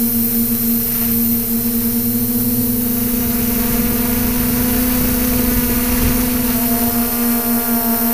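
Multirotor drone's motors and propellers humming steadily, heard from its own onboard camera, with a strong steady tone. About seven seconds in, a set of higher tones joins it.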